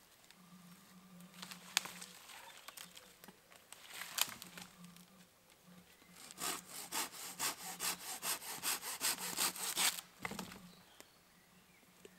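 Folding pruning saw cutting through a fallen branch: a couple of single knocks of wood, then quick back-and-forth saw strokes, about four a second, from about six seconds in until they stop near ten seconds.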